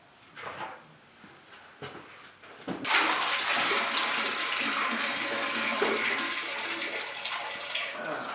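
A few light knocks, then about three seconds in a tap opens and water runs steadily into a large utility sink.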